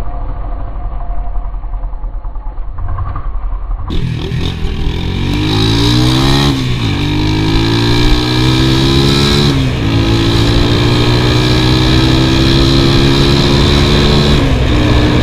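Small motorcycle engine heard from the rider's seat, muffled for the first four seconds, then accelerating through the gears. The pitch climbs, drops at an upshift about six and a half seconds in, climbs again, drops at a second upshift near ten seconds, then holds fairly steady before easing down near the end.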